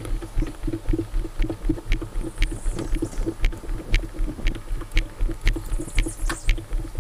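Footsteps on tarmac, about two a second, over fast rhythmic low knocking and rattling from the plastic kayak and its camera mount jostling as the boat is moved along on foot.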